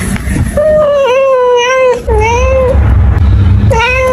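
Domestic cat meowing loudly: a long, drawn-out meow, then a shorter one, then another starting near the end.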